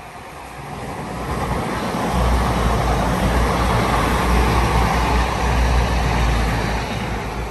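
East Midlands Railway Class 222 Meridian diesel multiple unit passing, with the rumble of its underfloor diesel engines and its wheels on the rails. The noise builds from about a second in, is loudest from about two seconds in, and eases slightly near the end.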